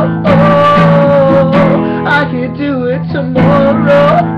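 Acoustic guitar strummed in a steady rhythm, with a man singing long, wavering held notes over it.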